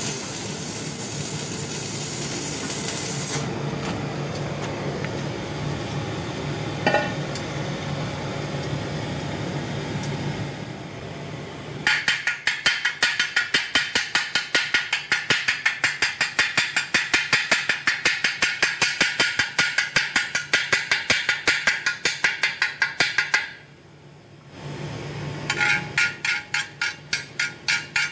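Stick-welding arc from a DIY resonant inverter welder hissing and crackling for the first few seconds, then a steady hum. About twelve seconds in, a chipping hammer starts rapping slag off the weld bead in a fast even run of about four strikes a second. It stops briefly near the end and then starts again.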